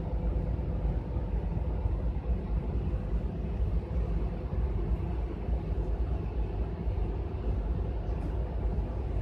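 City bus driving, heard from inside the passenger cabin: a steady low rumble of engine and road noise with a faint hum.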